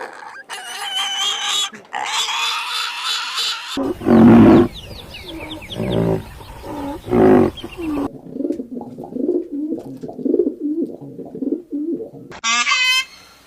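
Several different animal calls edited one after another: a long high-pitched call, then deep, loud grunting calls, then a run of quieter low grunts, with high honking calls starting near the end.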